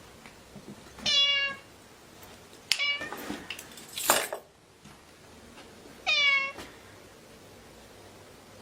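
Cat meowing: a high call about a second in, a shorter one near three seconds, and another about six seconds in, the first and last alike in shape. A short noisy burst comes near four seconds.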